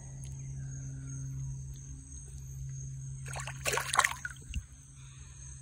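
Water splashing for about a second, a little past three seconds in, as a jungle perch is let go by hand in a shallow creek and kicks away. A steady high insect drone runs behind it.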